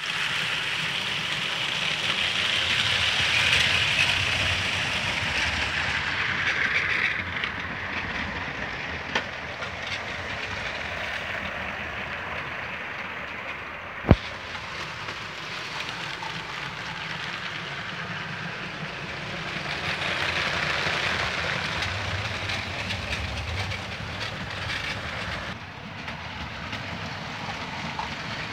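Several motorised Lego trains (Powered Up and 9V) running on plastic track: a steady rolling rattle and motor whir that swells as trains pass close by, with one sharp click about halfway through.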